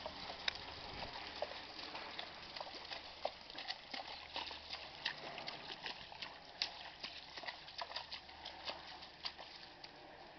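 Welsh Cob's hooves splashing through a shallow stream and knocking on its stony bed, an irregular run of sharp clicks and taps.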